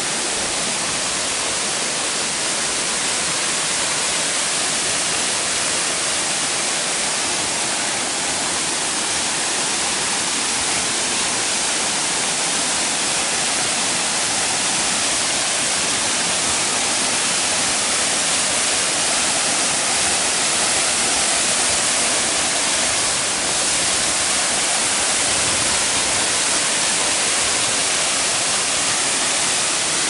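Waterfall cascading down a rocky jungle slope: a steady rush of falling water.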